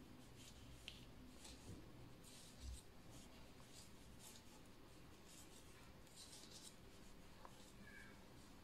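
Faint scratchy rustles and light ticks of metal knitting needles and yarn, about one a second, as a row is purled by hand.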